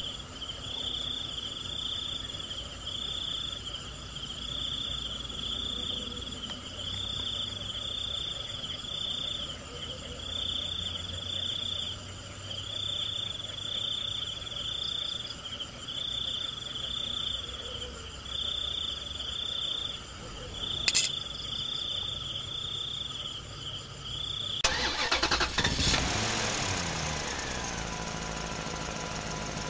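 Outdoor background: a high chirp repeating about once a second over a low engine rumble, with a single sharp click about two-thirds of the way through. Near the end a motor vehicle passes close by, louder, its pitch falling as it goes.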